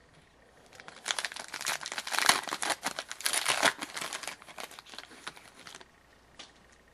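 Hockey card pack wrapper crinkling and tearing as it is opened by hand, a dense crackle lasting about five seconds, then a single small click near the end.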